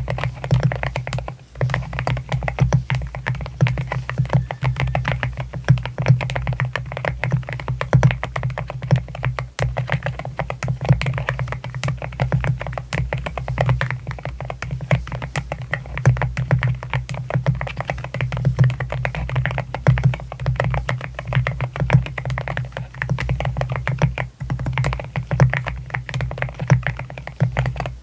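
Rapid, continuous typing on an AKKO MU01 mechanical keyboard with a rosewood case and Rosewood linear switches: a dense stream of keystrokes with no pauses.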